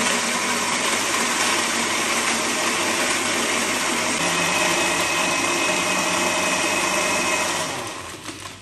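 Electric countertop blender running loudly, blending a milky cold-coffee mixture, then switched off near the end, its motor winding down.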